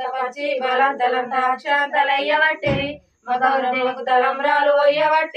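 Women singing a Telugu mangala harathi devotional song during the lamp-waving ritual. About three seconds in there is a brief low thump, then a short pause before the singing resumes.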